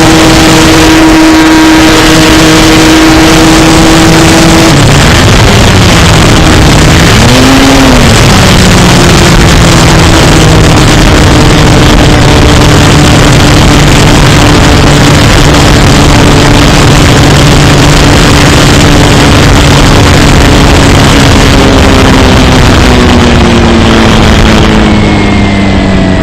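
Electric RC model plane's motor and propeller droning under heavy rushing air noise, very loud and distorted. The pitch swings down and up a few seconds in, settles lower, then falls slowly near the end as the throttle comes back.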